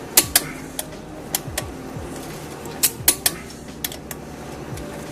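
Click-type torque wrench on the flywheel bolts, giving several sharp metallic clicks, some in quick pairs, as each bolt is checked at its final torque.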